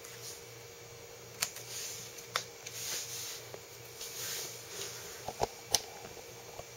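A few light clicks and soft rustles from handling a ThinkPad X200 Tablet laptop as it is switched on, over a faint steady hum.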